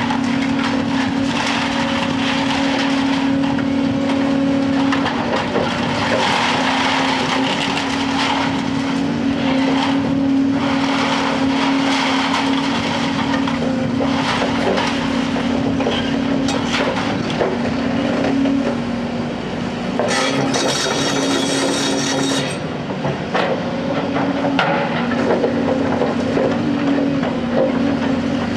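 Diesel engines of two Hyundai crawler excavators running steadily under load, the nearer one a Robex 300NLC-9A with a sorting grab, over the irregular clatter and knocking of scrap metal and rebar being grabbed and dropped into a steel container. A two-second hiss comes about twenty seconds in.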